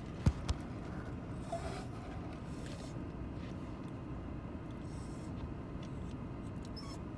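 Steady low rumble of a car heard from inside the cabin, with two sharp knocks close together right at the start.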